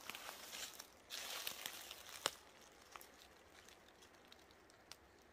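Close rustling and crinkling for about two seconds with a few sharp clicks, the loudest a little past two seconds in, then only faint scattered ticks.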